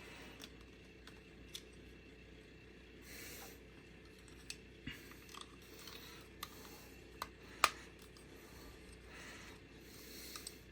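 Faint clicks and light rustling of small plastic figure parts being handled and snapped together, with a sharper click a little past the middle.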